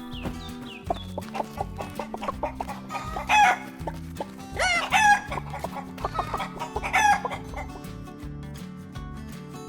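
Three loud chicken calls, about three and a half, five and seven seconds in, over background music.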